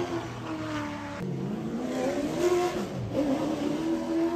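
Late model stock car V8 engines running at low speed as the cars roll past, the pitch rising and falling with the throttle. There is an abrupt cut to a second car about a second in.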